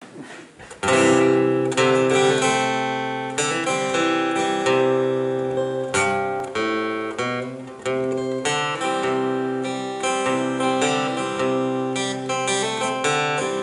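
Acoustic guitar playing the instrumental introduction of a song: chords strummed and picked in a steady rhythm, coming in about a second in.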